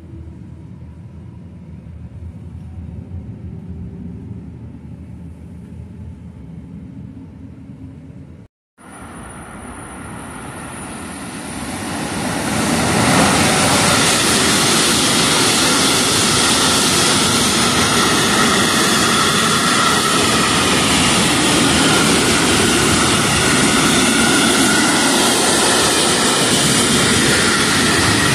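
A quieter low rumble heard from inside a train carriage, then, after a brief dropout about eight seconds in, a freight train of hopper wagons passing close at speed. Its wheel and wagon noise builds over a few seconds into a loud, steady rush of rolling stock on the rails.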